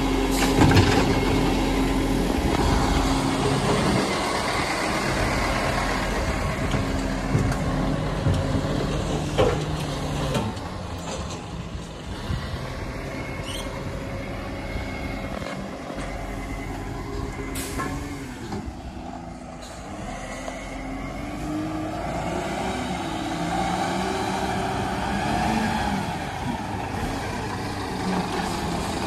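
Iveco side-loading garbage truck working a bin collection. Its engine and hydraulic arm run while a wheelie bin is lifted and emptied, with several knocks in the first few seconds. The truck then fades as it moves off, and grows louder again as it drives back up to the next bins.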